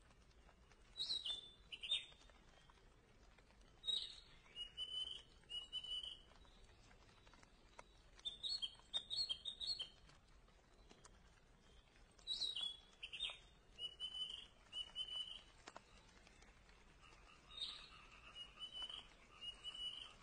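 A songbird singing outdoors: a phrase of several high, clear notes with short downward glides, repeated five times about every four seconds.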